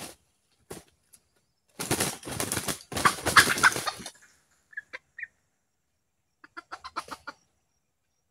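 Red junglefowl roosters scuffling: a loud burst of wing flapping and rustling about two seconds in, lasting about two seconds, followed by a few short clucks near the end.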